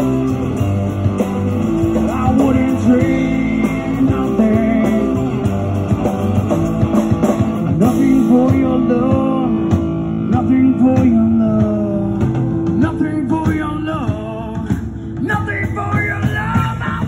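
Live rock band playing a song: acoustic and electric guitars over drums and bass, with a lead line bending in pitch through the middle.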